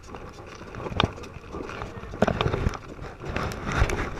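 Wind and water noise aboard a small sailboat under sail, buffeting the microphone. Several sharp knocks and clatters come from the boat and its rigging, the loudest about a second in and just past two seconds.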